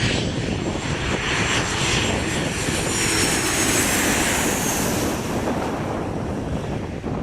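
Boeing 737-700 airliner's CFM56 turbofan engines on landing approach, passing low and loud. A high whine rides over the engine noise and slides down in pitch about three to five seconds in, as the jet goes by.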